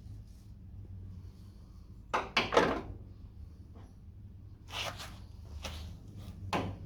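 Light taps on a Mk2 Ford Escort's steel rear quarter panel while a dent is worked out: a quick run of about three knocks around two seconds in, then single knocks every half second or so in the second half.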